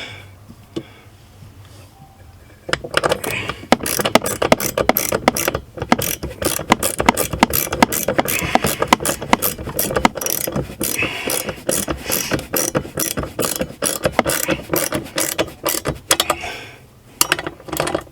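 Ratchet wrench clicking rapidly in repeated strokes as it drives a 13mm bolt tight, starting about three seconds in, with a brief pause near the end before a few more strokes.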